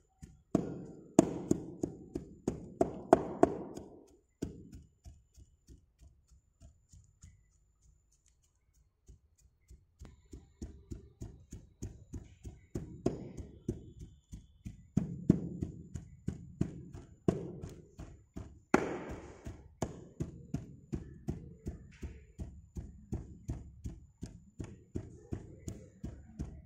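Round hand rammer tamping moulding sand in a foundry moulding box: a run of dull thuds, about three a second. They are strongest in the first few seconds, drop to faint taps for a few seconds, then pick up again and go on steadily.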